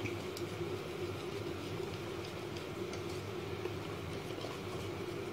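Wire whisk beating thin besan (gram-flour) batter in a ceramic bowl: soft, steady wet swishing, to break up any lumps, over a steady low hum.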